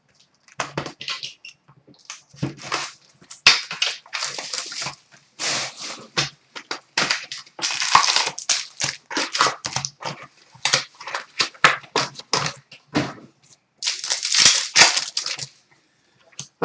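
Box of hockey trading cards being torn open and its packs and cards handled: irregular crinkling and crackling of wrappers and card stock.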